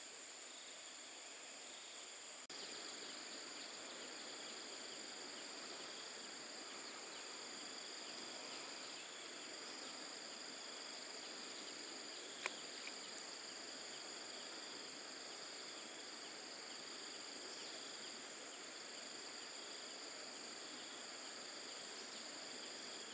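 Steady chorus of insects: several high, even trilling tones over a soft background hiss, with a single sharp click about halfway through.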